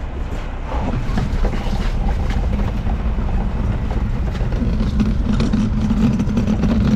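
Front-load garbage truck's engine running hard under load, likely straining to drag a dumpster out through unplowed snow. It gets louder about a second in, and a steady drone builds near the end.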